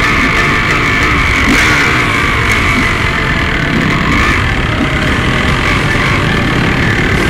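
Enduro dirt bike engine running steadily under way, heard from a camera mounted on the moving bike.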